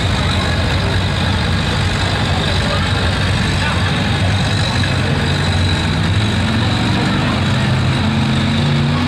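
1987 Chevrolet pickup's engine working hard under load as it drags a weight-transfer pulling sled, running steadily, its pitch climbing over the last few seconds.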